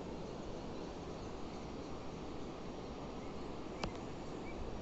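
Riverside outdoor ambience: a steady rushing noise, with a few short high chirps of birds or insects and one sharp click just before the end.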